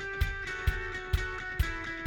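Background music with guitar over a steady beat, about two thumps a second.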